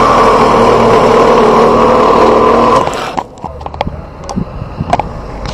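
A power tool running loudly and steadily at the guardrail, stopping abruptly about three seconds in. After it, scattered light clicks and knocks over a low hum.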